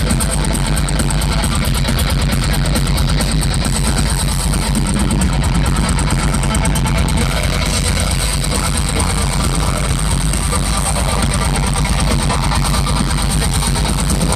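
Melodic death metal band playing live through a festival PA, with heavy distorted guitars, drums and growled vocals. Recorded by a phone in the crowd, the sound is overloaded and muddy, a loud continuous wall with no breaks.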